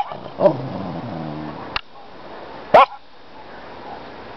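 Small dog barking: a bark with a low growl trailing on for about a second, then another single sharp bark a little past halfway.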